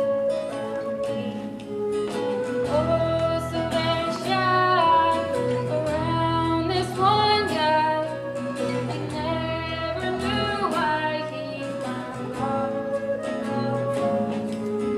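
A woman singing a song from a stage musical with instrumental accompaniment.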